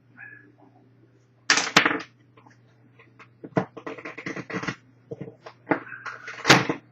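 Accessory packaging from an iPhone 4 box being handled: rustling, with a run of quick clicks and taps, and a sharp loud rustle near the end.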